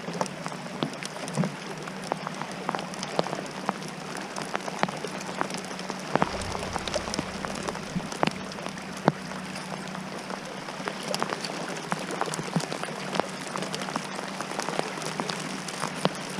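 Rain pattering on the kayak and the lake surface, with many sharp, irregular drop hits close to the microphone over a steady low hum.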